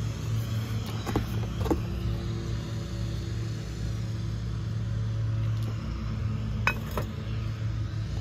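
A steady low hum, with a few light knocks and clinks about one and two seconds in and twice near the end as ceramic Christmas village houses are handled in a cardboard box.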